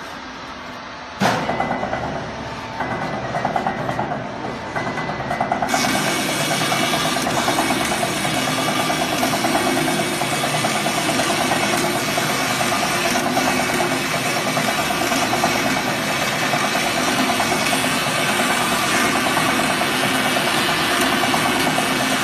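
Tyre-cutting machine running with a steady, dense mechanical drone as a waste tyre is fed between its steel cutting discs. The sound starts abruptly about a second in and turns brighter and fuller about six seconds in.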